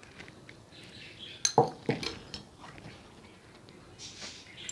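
A few sharp clicks and clinks on a glass bowl as whole almonds are scattered by hand over cut fruit, the loudest cluster about a second and a half in.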